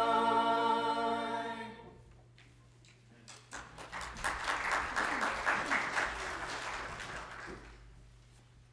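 A church choir holds its final sung chord, which ends about two seconds in. After a short pause the congregation applauds for a few seconds, and the clapping dies away.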